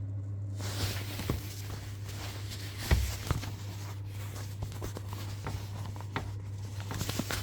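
Footsteps and scattered handling clicks and knocks over a steady low hum, with the loudest knock about three seconds in.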